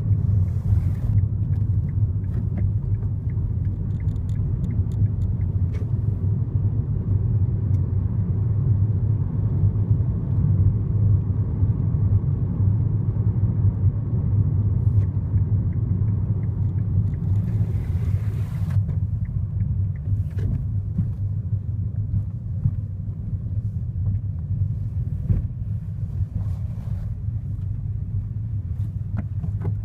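Steady low road and engine rumble inside the cabin of a moving 2015 Kia Rio, with a few faint clicks scattered through it.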